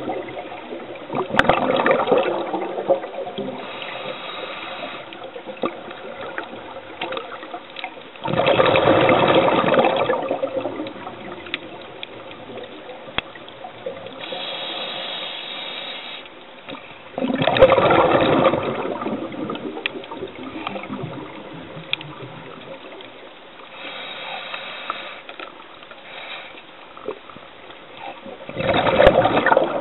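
Scuba diver breathing through a regulator underwater: a loud gurgling rush of exhaled bubbles about every nine seconds, with a fainter hiss of the inhale between.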